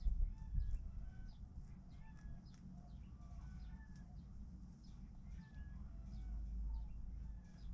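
Chickens clucking, with many short calls one after another, and high little chirps throughout. A low rumble sits underneath, with a couple of dull thumps near the start.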